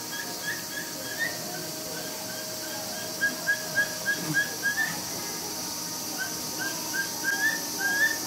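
Capybara giving a series of short, high chirping calls, about three a second, in runs of several with brief breaks. These are the stress calls of a capybara separated from its herd and calling to it.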